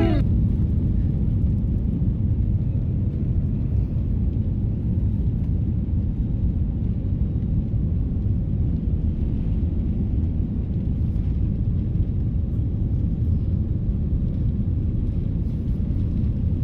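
Airliner cabin noise during the takeoff roll: a steady, deep rumble of jet engines at takeoff power and wheels on the runway, heard from a passenger seat.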